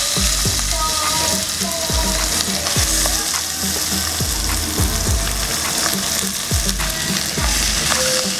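Raw chicken pieces sizzling and frying in a hot pot with garlic and lemongrass, stirred with a metal ladle. A regular low beat runs underneath.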